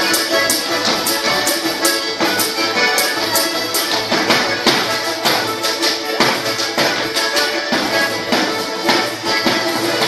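Lively Russian folk dance music, accordion-led, with an even beat of sharp percussive strikes about four times a second.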